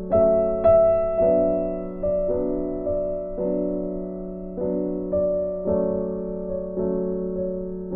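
Background music on a piano-like keyboard: slow notes and chords struck about once a second, each fading away, over a steady low held tone.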